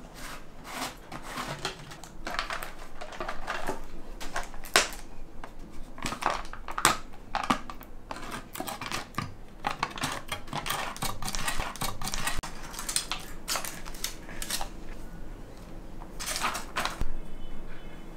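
A plastic jar of hard dog biscuits being opened by hand, sounding as an irregular run of clicks, crinkles and rattles. The screw lid is worked, the foil seal is picked at and torn, and the biscuits clatter against the jar as fingers take some out.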